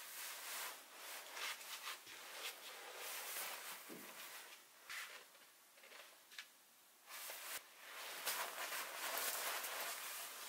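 Irregular rustling and handling noises, with a few soft clicks or taps.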